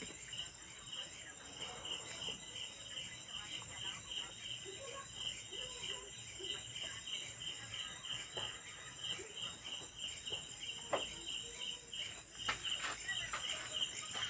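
Crickets chirping steadily in a high, pulsing rhythm, with a few faint knocks toward the end.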